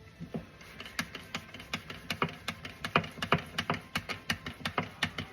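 Hand-operated gear oil transfer pump being worked to pump oil into a gearbox, its mechanism clicking rapidly at about four strokes a second.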